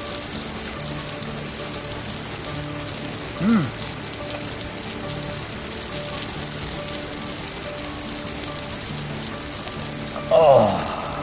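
Sausages sizzling on a small grill plate over a camp stove: a steady crackling hiss.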